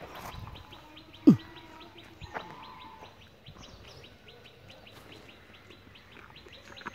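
High, evenly repeated chirps, about five a second, keep on steadily. About a second in comes one short, loud sound that sweeps downward in pitch.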